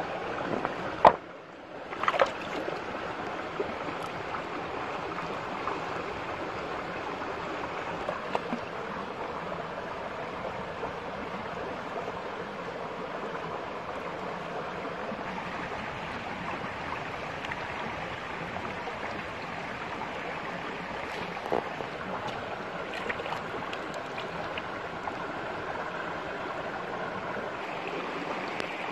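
Shallow rocky stream running steadily, with one sharp knock about a second in and a few faint clicks later on.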